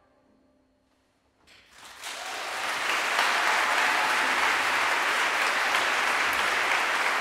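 A faint last string note dies away, then an audience bursts into applause about a second and a half in, swelling quickly and holding steady.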